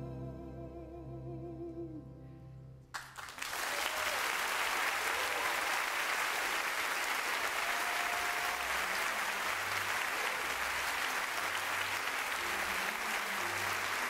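Orchestra holding the final chord of the song, which stops abruptly about three seconds in; an audience then applauds loudly and steadily.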